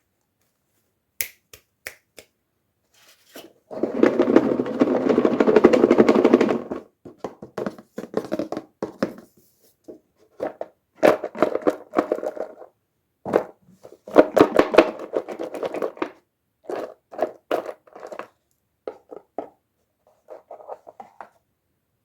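Hands unboxing a miniature doll toy. A few sharp clicks come first, then a long bout of packaging crinkling and scraping about four seconds in, followed by shorter bursts of the same handling noise.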